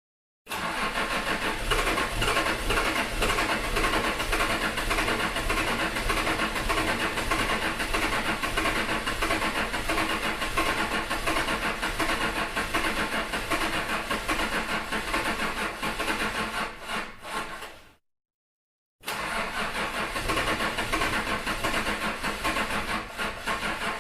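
Old pickup truck's engine being cranked by the starter without catching: one long crank of about seventeen seconds that falters near the end, a second's pause, then a second crank.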